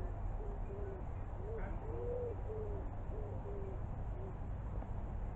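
A pigeon cooing: a run of short, low hoots, about two a second, over a steady low rumble.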